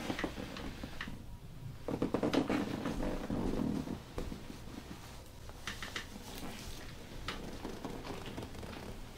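Hands massaging a patient's back: rubbing and rustling against skin and clothing, loudest for a couple of seconds near the start, with a few light clicks later.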